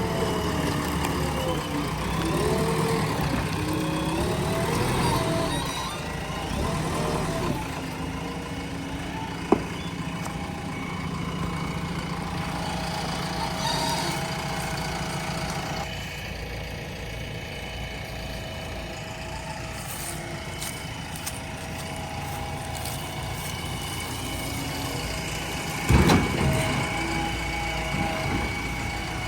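JCB 3DX backhoe loader's diesel engine running, its pitch rising and falling in the first several seconds as it works under load. A sharp knock about nine seconds in and a loud thud near the end.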